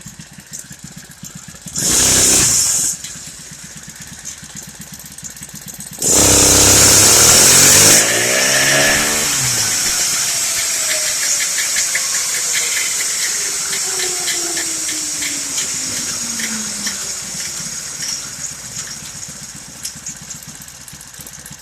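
Unrestricted Honda GXH50 49cc four-stroke engine idling, blipped once about two seconds in, then held at full throttle for about two seconds around six seconds in. After the throttle is released, a falling whine winds down over several seconds while the engine idles on.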